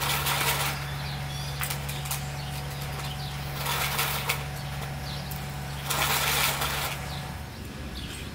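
Nylon string-trimmer line rustling and swishing as it is pulled out to arm's length and gathered in, three swishes about three seconds apart. Faint bird chirps and a low steady hum sit underneath; the hum stops near the end.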